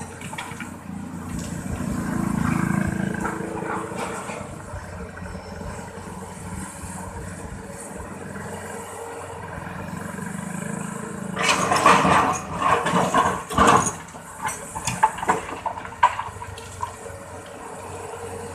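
Excavator engine running steadily while filling a river bank, with a loud rough rushing and clattering for a few seconds about two-thirds of the way through, as a load of earth is dumped and spills down.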